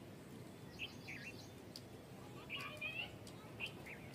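Birds chirping: a few short calls about a second in, a cluster near the middle and another near the end, over a quiet steady background.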